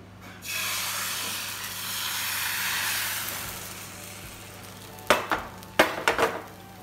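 Maida dosa batter poured onto a hot frying pan, sizzling loudly as it hits the metal and fading over a few seconds. Near the end come a few sharp knocks.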